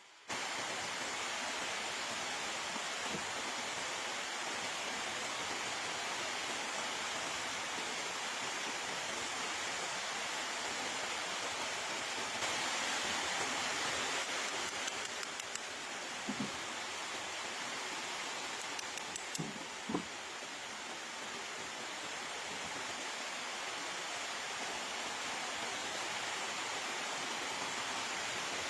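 A steady, even hiss that starts abruptly, with a few faint short knocks partway through.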